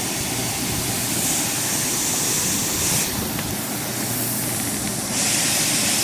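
Farm machinery running steadily with a loud, even rumble and hiss. The high hiss swells twice, about a second in and again near the end.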